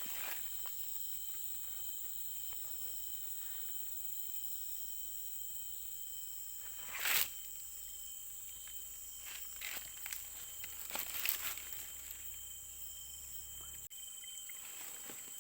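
Steady high-pitched drone of insects, with a few short rustling noises about halfway through and again near the end.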